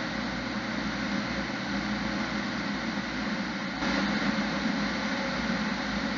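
Fire engine's engine and road noise heard from inside the cab while driving, a steady drone with no siren. The sound steps up slightly about four seconds in.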